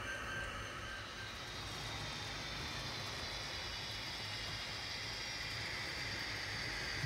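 HO scale model freight trains running on the layout's track, a steady rolling hiss over a low hum. The higher hiss grows stronger in the second half as the diesel-hauled train comes closer.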